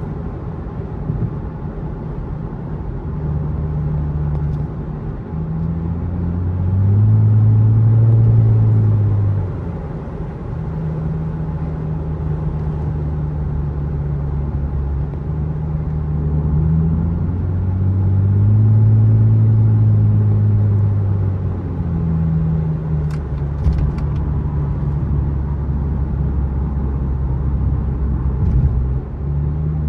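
Lexus with a muffler delete, heard from inside the car while driving: a steady low exhaust drone that swells louder and rises then falls in pitch twice as the engine pulls.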